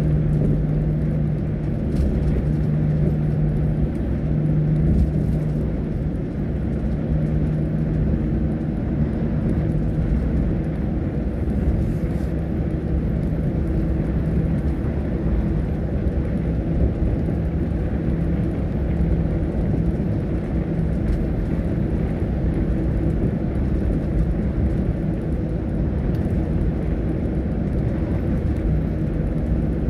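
Bus engine and tyre noise heard from inside the moving bus: a steady low rumble with an engine hum that fades in the middle and comes back near the end.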